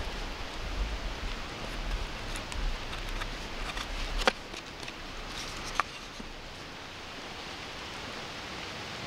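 A knife carving the bowl of a wooden spoon: faint scraping and small snaps of wood, with two sharp clicks about four and six seconds in, over a steady hiss.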